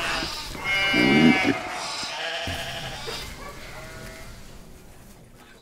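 Sheep bleating: one loud bleat about a second in and a fainter one around three to four seconds, the sound fading out toward the end.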